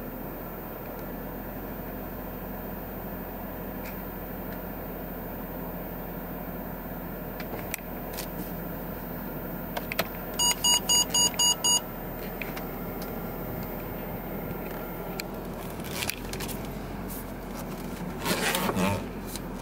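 Steady low hum inside the cabin of the idling Mercedes-Benz S63 AMG, broken about halfway through by a rapid run of about seven electronic beeps from the car's parking-sensor warning, with some rustling near the end.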